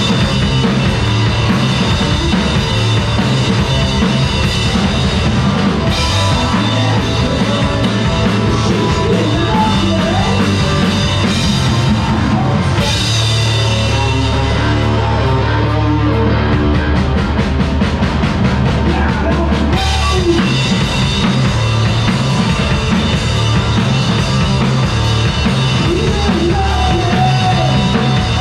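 Live rock band playing an instrumental passage: electric guitars, keyboard and drum kit, with cymbal crashes every few seconds.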